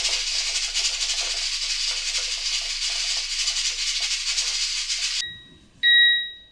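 Cuckoo pressure rice cooker venting steam in a loud, steady hiss that cuts off about five seconds in. The cooker's electronic beep follows, and a second beep starts near the end; the beeps signal the end of the automatic sterilising-clean cycle.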